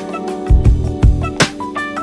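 Instrumental background music: held notes over a beat of drum hits.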